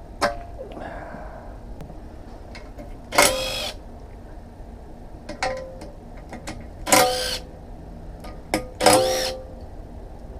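Metal tools and engine parts clinking and clanking, with three louder ringing strikes about three, seven and nine seconds in and lighter clicks between.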